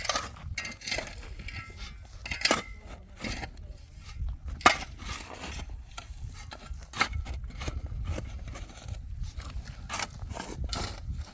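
Irregular knocks and clinks of hard objects being handled, the sharpest about four and a half seconds in, over a low rumbling noise.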